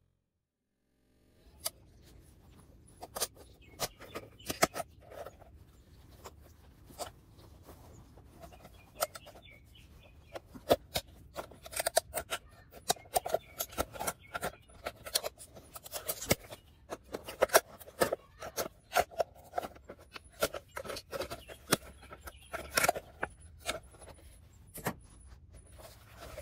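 Hand shears snipping through the hard plastic of a Coke bottle's base: a long, irregular run of sharp clicks and crunches, cut after cut, beginning about a second and a half in.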